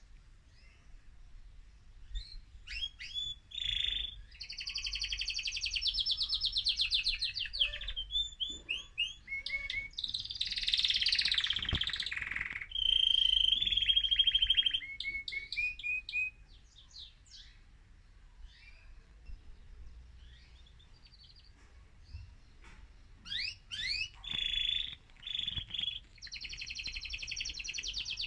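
An excited male mosaic canary singing: long, high-pitched phrases of fast trills and rolls. The song runs for the first half, goes quiet for several seconds, then picks up again near the end.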